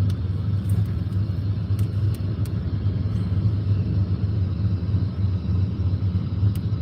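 Steady low rumble of a car's engine and road noise heard from inside the moving car, with a few faint high ticks.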